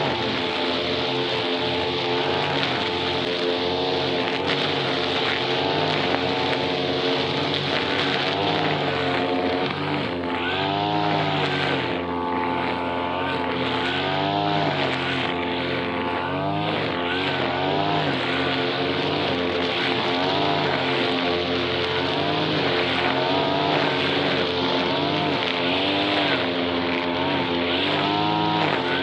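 Brush cutter engine running steadily. Its pitch rises and falls again and again from about ten seconds in as the throttle is worked.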